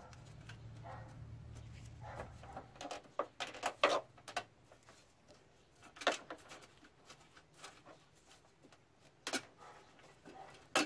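Scattered clicks and taps of a wrench and socket working the headlight-motor bracket bolts as they are loosened. There is a short cluster of clicks about three to four seconds in, then single ones a few seconds apart, over a faint low hum that fades out early.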